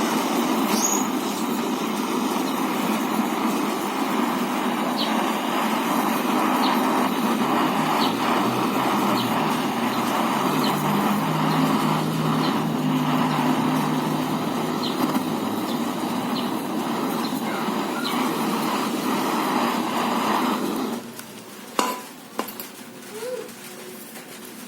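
Gas-cylinder brazing torch burning with a steady rushing hiss that cuts off suddenly about three-quarters of the way through, followed by a few sharp clicks and knocks.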